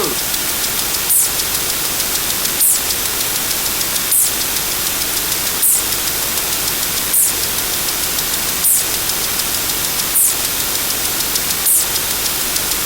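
Steady hiss of static-like noise with a brief high chirp about every second and a half.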